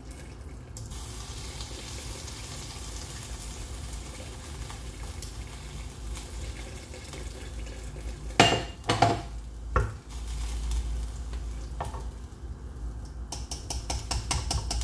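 Chicken broth pouring through a small metal mesh strainer into a stainless steel stockpot, a steady splashing trickle. Loud metal clinks of the strainer against the pot come a few times about eight to ten seconds in, and quick metal clicks and scraping follow near the end.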